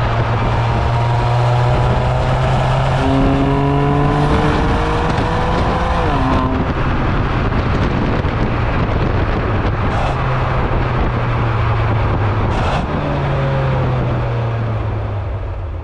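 BMW M2 Competition's twin-turbo straight-six exhaust under acceleration, heard close to the tailpipes over heavy road noise. The engine note climbs in pitch for about six seconds and then drops sharply, as at an upshift, and starts climbing again near the end.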